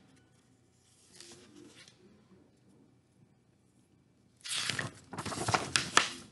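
Paper rustling and crinkling as a picture book's page is turned close to the microphone. It comes after a quiet stretch and lasts about two seconds near the end, with a few sharper crackles.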